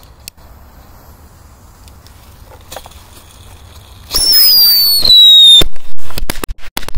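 Pyrotechnic "mice" (small whistling ground firecrackers) going off: about four seconds in, a loud whistle falling slightly in pitch for about a second and a half, then a rapid string of sharp bangs.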